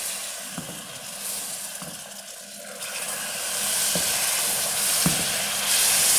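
Hot sugar syrup sizzling and bubbling in a metal pot as orange juice is poured in and stirred, with a few light knocks of the stirring spoon against the pot. The sizzle grows louder about three seconds in.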